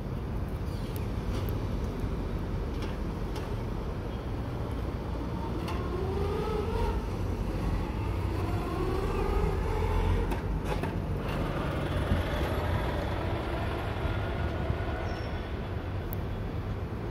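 Steady low rumble of background traffic, with faint gliding tones that rise and fall around the middle.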